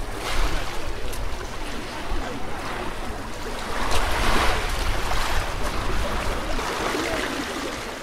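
Pebble-beach ambience: small waves washing on the shingle shore under the chatter of many beachgoers, with a low wind rumble on the microphone. The wash swells louder about four seconds in.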